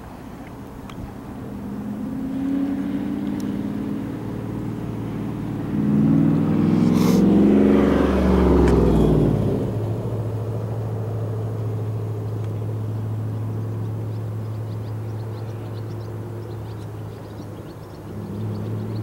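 A motor vehicle passing close by: its engine builds, is loudest about six to nine seconds in, and its pitch falls as it goes past. After that a steady low engine hum runs on, swelling slightly near the end.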